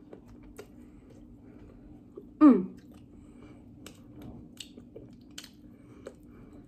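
A person chewing a mouthful of McDonald's double cheeseburger: soft, wet mouth clicks and squelches scattered irregularly. About two and a half seconds in, one short vocal sound falls in pitch, louder than the chewing.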